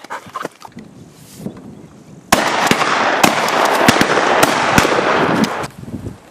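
A rapid volley of shotgun shots from several gunners firing at a pheasant released from the tower: a dozen or so sharp cracks, some overlapping, over about three seconds, starting suddenly partway in, with a loud rushing noise underneath.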